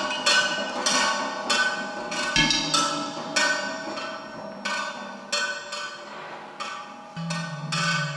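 Percussion music played on found objects: irregular ringing strikes, roughly two a second, with a low held tone coming in about seven seconds in.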